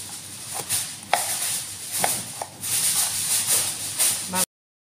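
Chef's knife chopping onion on a plastic cutting board: irregular taps of the blade against the board, over a steady hiss. The sound cuts out briefly near the end.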